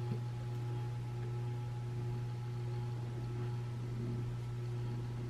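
Steady low hum with a few faint higher tones held throughout: room tone, with only a tiny tick just after the start.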